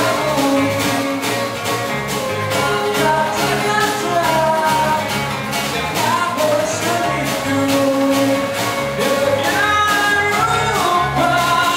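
A live band playing with a steady drum beat: two strummed acoustic guitars, electric bass, keyboard and a small drum kit, with a male vocalist singing over them.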